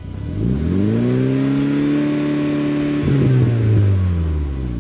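Exhaust of a first-generation Mitsubishi Eclipse GSX's turbocharged 2.0-litre four-cylinder on its stock-size turbo, revved from idle. The revs climb, hold for about two seconds, get a louder push about three seconds in, then fall back to idle near the end.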